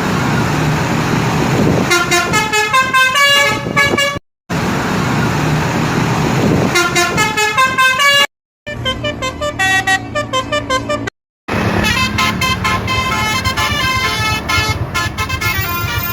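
Indonesian 'basuri' telolet bus horns playing quick tunes of rapidly changing notes. Several short clips are cut together with brief silent gaps, and vehicle noise sits beneath and between the tunes.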